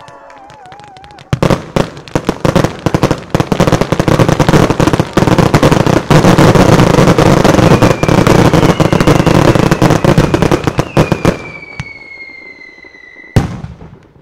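A fireworks display firing a dense barrage of rapid bangs and crackles. It starts suddenly about a second in, runs thick for about ten seconds and then dies away. Over its second half a whistle slowly falls in pitch, and a single sharp bang comes near the end.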